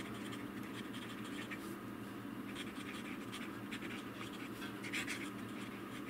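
Fine-nibbed Platinum fountain pen writing cursive on paper: the nib scratches faintly with each stroke, in an irregular run of short strokes.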